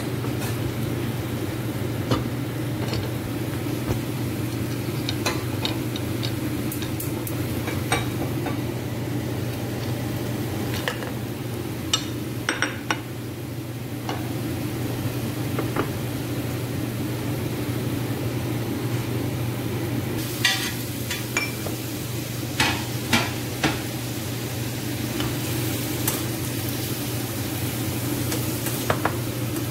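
Chicken cooking in a stainless-steel pot and being stirred with a wooden spatula: scattered knocks and scrapes against the pot, in clusters, over a steady low hum and light sizzling.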